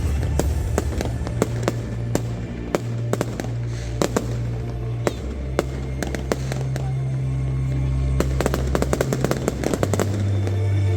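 Fireworks going off in a rapid, uneven string of sharp bangs and crackles, thickest about eight to ten seconds in, over music with long, deep held notes.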